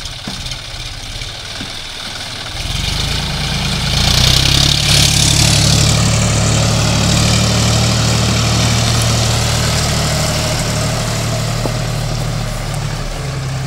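John Deere 5050 D tractor's three-cylinder diesel engine running under load as the 4WD tractor works through mud and tall grass. The engine grows louder about two and a half seconds in and is loudest from about four to six seconds, when a brief hiss of grass brushing past joins it. It then runs on steadily.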